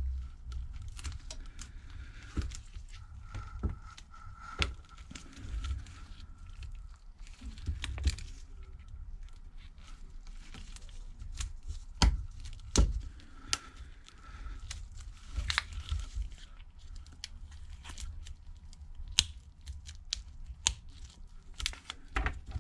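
Small handling sounds of phone repair as a Galaxy S8's wireless charging coil is fitted: plastic crinkling and rustling with scattered light clicks and taps, over a steady low hum.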